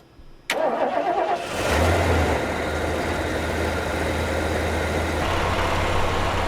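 Ford E-250 van's V8 engine starting: a click, about a second of starter cranking, then the engine catches with a brief rev and settles into a steady idle.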